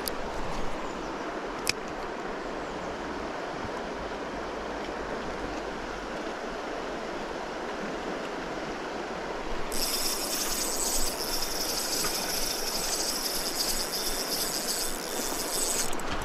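Shallow stony river flowing with a steady rush, with a single sharp click just under two seconds in. From about ten seconds a high, steady whir joins in and stops sharply near the end: a Shimano Vanquish 2500S spinning reel being cranked on the retrieve.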